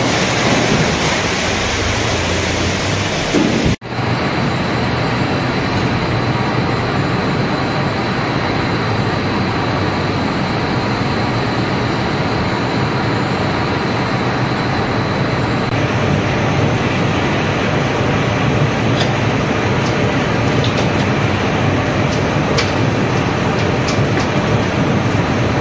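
Kitchen-waste pretreatment machinery running: a loud, steady mechanical din, broken by a brief dropout about four seconds in, with a few light clicks near the end.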